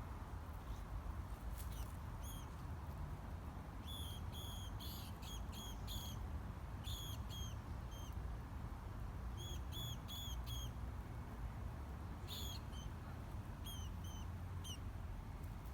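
A mouse caught by a cat squeaking in distress: short, high-pitched squeaks, some single and some in quick runs of two to five, with a few seconds between the runs. A steady low rumble lies under them.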